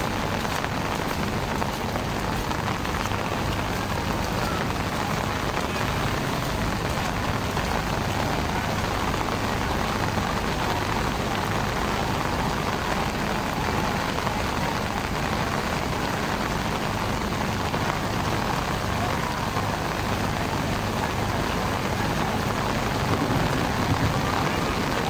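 Heavy rain pouring down in a steady, dense hiss, with a low steady hum underneath.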